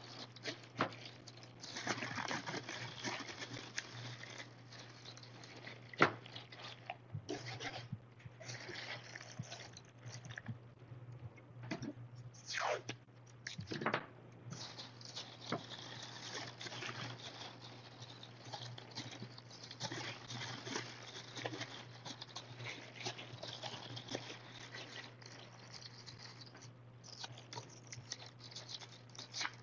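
Thin plastic bag crinkling and rustling in irregular bursts as it is handled and wrapped around a glass vase, with one sharp tap about six seconds in. A steady low hum runs underneath.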